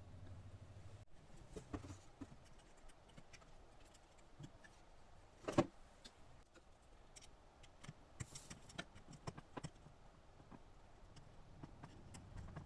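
Scattered small clicks and light metallic clatter from hands working on the Sony MHC-GT3D unit with tools and small parts, with one louder knock about halfway through.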